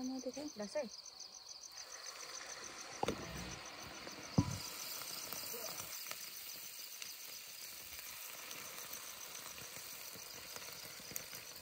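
Sel roti deep-frying in hot oil: a steady sizzle that grows louder about two seconds in. Two short knocks come a second and a half apart, the second the loudest sound.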